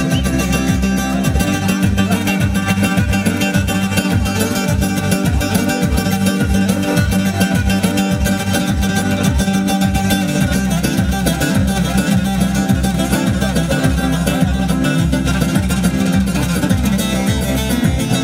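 Instrumental dance music, with a plucked-string melody over a steady, regular beat.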